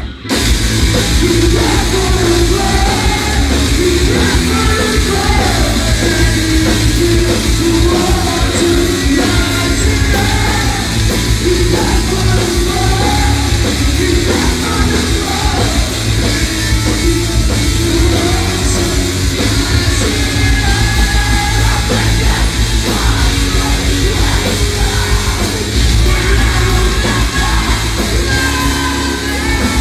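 A rock band playing live, with guitars, drums and a singer yelling and singing, heard from within the crowd through a phone's microphone. The sound drops out for a moment right at the start.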